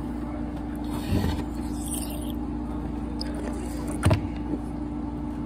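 Eating a grape jelly fruit candy out of its plastic shell: short biting and sucking mouth noises, with a sharp knock about four seconds in, over a steady low hum.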